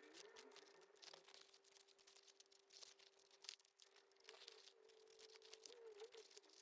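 Near silence with faint, scattered snips of small scissors cutting paper.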